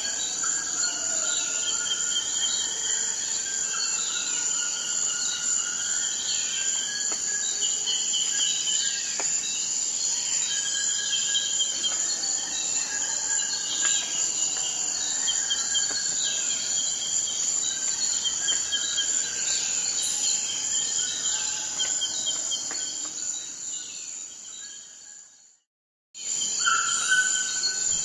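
Amazon rainforest ambience: a dense insect chorus holding one steady high buzz, with birds calling over it again and again. About 25 s in it fades out to brief silence, then resumes sharply with a similar chorus.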